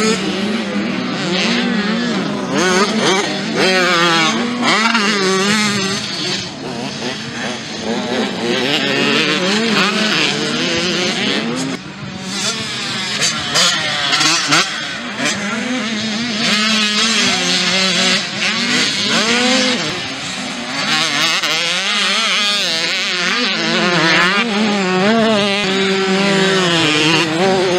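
Motocross dirt bike engines revving hard as riders race past on a dirt track, the pitch rising and falling with each throttle change and shift. Several bikes overlap at times.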